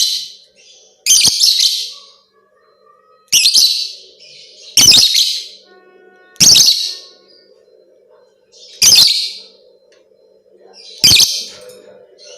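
A lovebird calling in loud, shrill chirping bursts of about a second each, seven in all, spaced irregularly a second or two apart.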